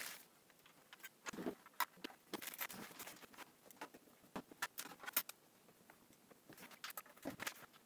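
Light, scattered clicks, taps and scrapes of a screwdriver and small screws on the plastic case of an Atari 1040STF as it is screwed back together.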